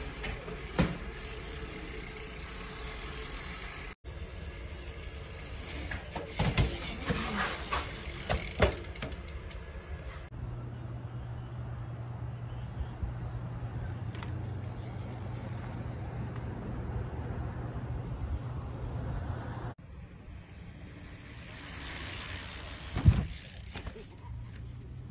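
BMX bike riding heard on the camera's own microphone: tyres rolling over pavement, with several sharp clattering knocks of the bike and the loudest thump near the end. A steady low hum runs through the middle stretch.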